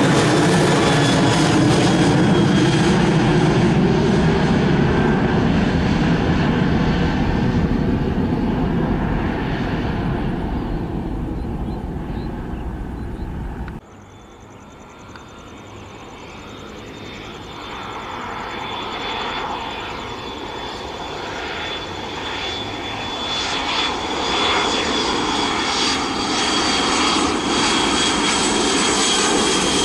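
Boeing 737-800's CFM56 jet engines climbing away after takeoff, the roar fading off until it cuts off suddenly about halfway through. Then a McDonnell Douglas MD-83's Pratt & Whitney JT8D engines approach to land, growing steadily louder with a high, steady whine over the roar.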